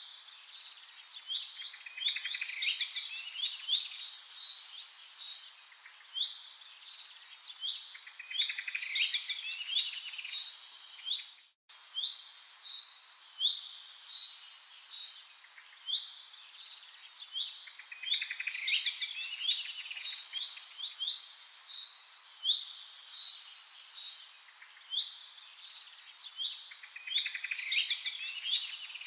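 Birdsong: small birds chirping and trilling in quick, high phrases. It cuts out for a moment a little before halfway.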